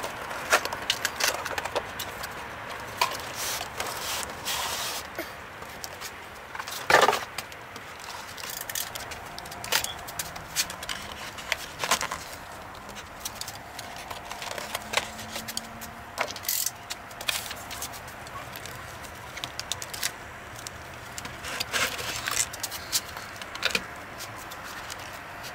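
Packaging being handled during an unboxing: a cardboard box, its lid and inner card sliding and knocking, and plastic bags crinkling as bagged model train coaches are lifted from their tray. The clatter and rustle come in irregular short bursts.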